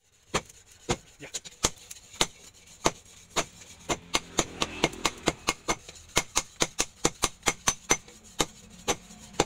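Hand hammer striking red-hot leaf-spring steel on a steel post anvil, sharp ringing blows, about two a second at first and quickening to about three a second in the second half.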